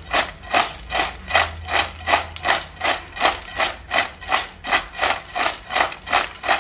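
Crisp fried rice-flour chips tossed in a steel bowl, rustling and scraping against the metal in an even rhythm of about two and a half strokes a second as they are mixed with salt and chili powder.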